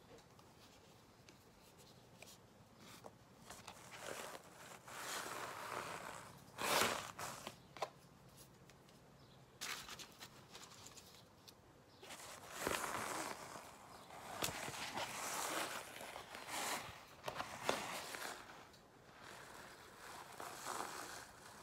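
A sheet of canvas-pad paper being handled, rustling and crinkling in several bursts, with a few sharp taps and clicks.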